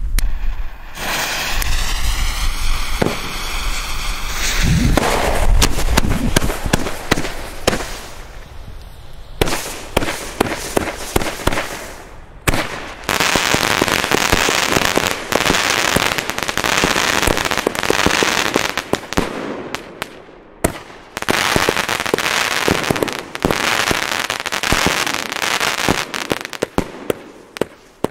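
Consumer firework batteries firing, a salute battery with a smoke battery: a few rising whistles in the first seconds, then a long run of rapid shots and crackling bangs.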